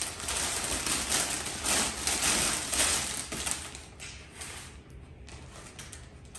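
Clear cellophane gift-basket wrap crinkling and rustling as it is handled and the ribbon is pulled free. Loudest for the first four seconds, then fainter.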